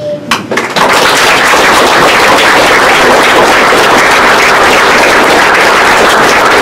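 Audience applauding: a few scattered claps, then dense, steady clapping from about a second in.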